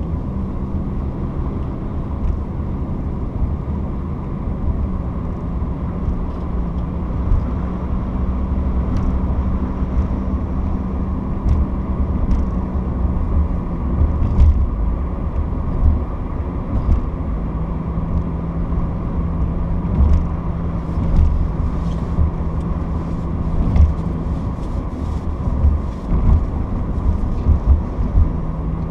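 Steady low rumble of a moving vehicle, with a faint droning hum and scattered light clicks and knocks.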